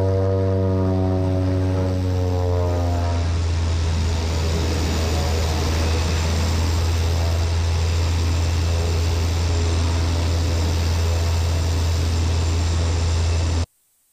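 Cessna 208 Caravan's PT6 turboprop engine and propeller running as the plane taxis onto the runway for takeoff, heard from a camera mounted outside on the float. A steady low drone with a whirring tone that fades out after about three seconds, leaving a rushing noise; it cuts off suddenly near the end.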